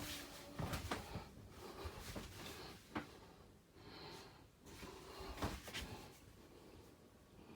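Faint, irregular knocks and clicks, like handled cupboard or drawer fittings in a small, enclosed room.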